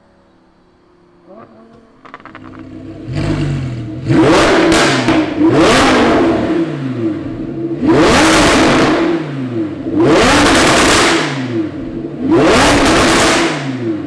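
Audi R8 V10 Plus's 5.2-litre V10 revved hard through its exhaust with the car stationary: about five sharp blips, each climbing quickly and dropping back, starting a few seconds in.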